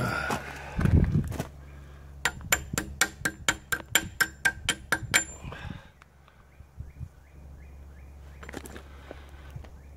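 A chipping hammer strikes a fresh stick weld on a forged steel chain hook and excavator bucket, knocking off slag. It makes a quick run of about fifteen ringing metal strikes, about five a second, lasting some three seconds. Before the strikes there is a dull thump about a second in.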